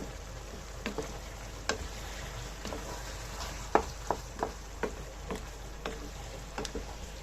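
Food frying in a pan with a steady hiss, while a cooking utensil stirs it and knocks and scrapes against the pan at irregular intervals, about a dozen times.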